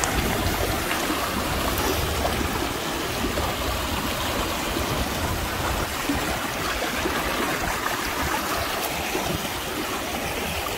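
Shallow river water rushing and churning over rocks and around a log, a steady flowing rush.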